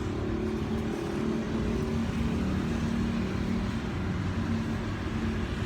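Steady vehicle engine and road noise with a low, slightly wavering hum.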